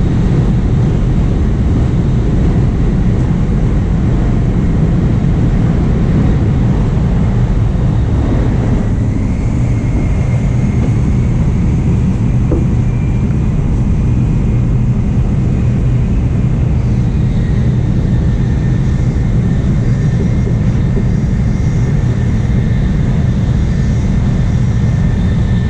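Steady low rumble and rushing noise inside the passenger cabin of a Nozomi Shinkansen bullet train running at speed. A faint high whine joins in about ten seconds in.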